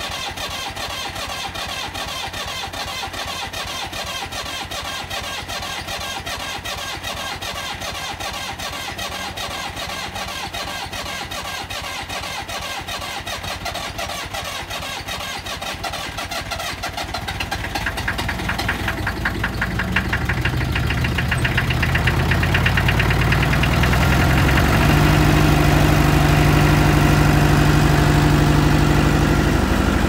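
Old diesel forklift engine cranking over at length on a weak battery, its glow plug heated by jumper cables wired straight to the battery, then catching about halfway through. It runs up and settles into a louder, steady run.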